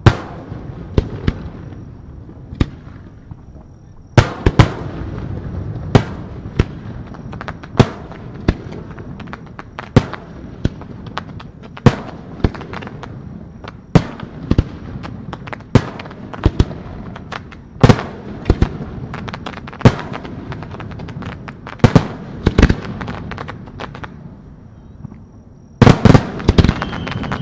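Aerial firework shells going off in a steady sequence: a loud bang about every one to two seconds, often in pairs, with crackling between. After a short lull, a rapid cluster of bangs bursts near the end, along with a high falling whistle.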